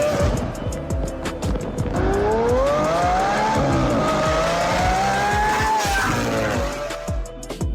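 Supercharged 2016 Corvette's V8 under hard acceleration, its engine note climbing twice and then falling away near the end.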